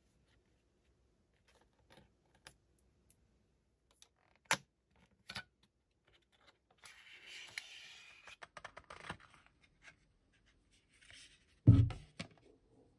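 Cardboard packaging of a clear plastic phone case being handled and opened: scattered light clicks and taps, then a scraping, tearing rustle as the box is opened and the case slid out. A loud dull thump comes near the end, with a smaller one just after.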